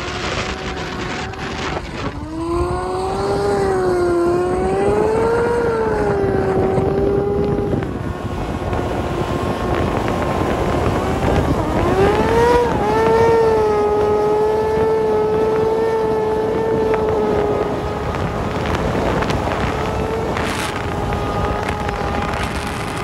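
Sport-bike engine running at high revs with a whine that rises and falls with the throttle for several seconds, then holds steady, with wind buffeting the microphone.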